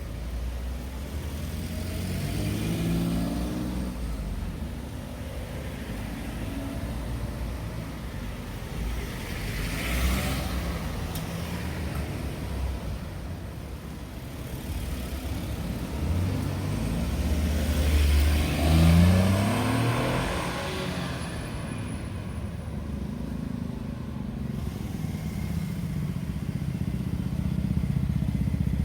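Road traffic at a signalled crossroads: cars pulling away and driving past, with engine notes rising as one accelerates a couple of seconds in and another about two-thirds of the way through.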